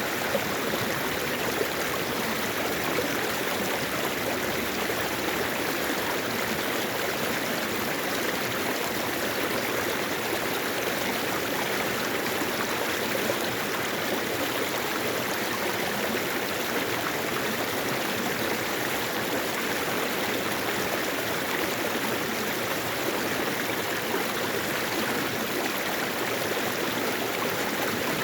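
Mountain valley stream flowing over rocks, a steady rushing and babbling of water.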